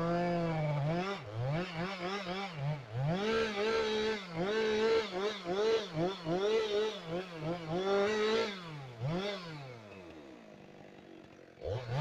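Two-stroke chainsaw at full revs, dropping off about half a second in. It is then revved up and down in quick bursts, about twice a second, and settles to a lower idle near the end before being revved again at the very end.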